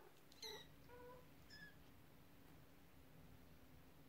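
A small kitten gives three short, faint mews in the first second and a half, the first a brief high squeak.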